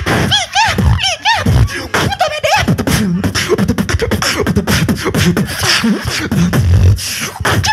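Beatboxing into a handheld microphone: warbling, bouncing pitched vocal tones for the first two or three seconds, then a rapid run of vocal drum sounds, with clicks and snare-like hits over deep bass kicks.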